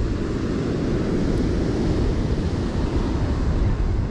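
Wind buffeting the microphone, with ocean surf washing onto the beach behind it: a steady, dense rush, heaviest in the low rumble.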